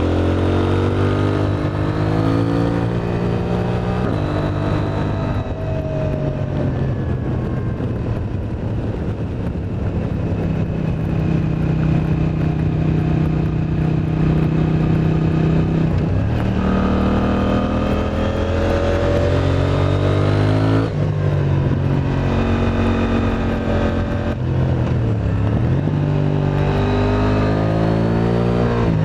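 KTM 890 Duke R's parallel-twin engine through an Akrapovič exhaust, ridden hard: revs climb and drop back repeatedly as it runs through the gears, with one deep drop and pick-up near the end.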